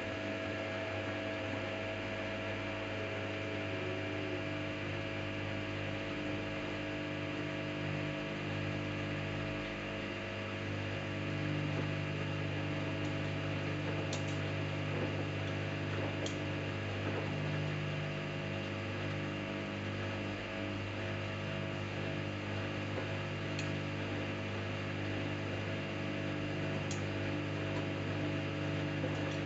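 Samsung Eco Bubble washing machine running a cotton wash cycle: a steady motor hum. A few faint ticks come in the second half.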